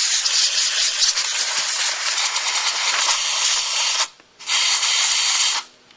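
Compressed-air blower gun hissing as it blows concrete dust out of a hammer drill: one long blast that stops about four seconds in, then a second short blast of about a second.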